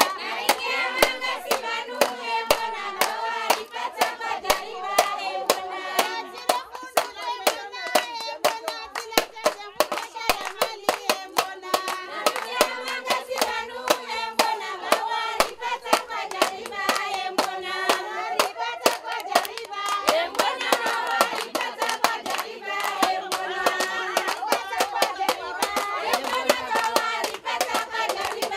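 A group of women singing together, accompanied by steady rhythmic hand clapping that keeps the beat.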